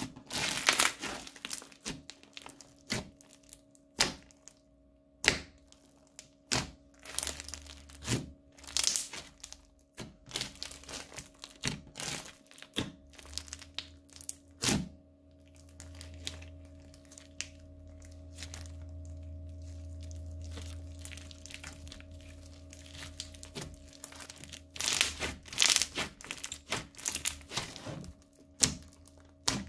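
Crunchy slime studded with small beads being kneaded and squeezed by hand, giving an irregular run of sharp pops, clicks and crackles, densest at the start and again near the end. A steady low rumble runs under the middle stretch.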